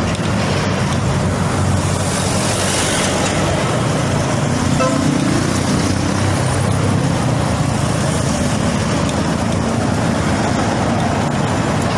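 Steady road and traffic noise, loud and continuous.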